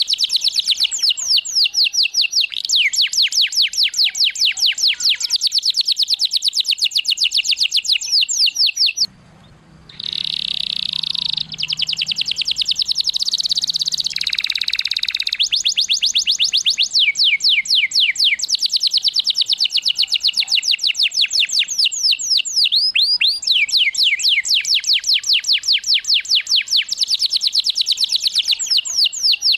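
Domestic canary singing loud, rapid trills of fast repeated notes. About nine seconds in the song breaks off briefly and a different, slower rolling phrase follows before the fast trills resume.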